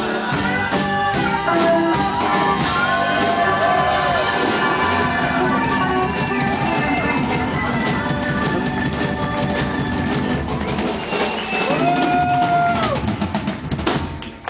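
A band playing, with a drum kit keeping time under held melody notes that bend up and down. The sound dips briefly right at the end.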